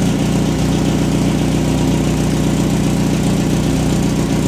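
Car engine idling steadily, an even low hum with no revving.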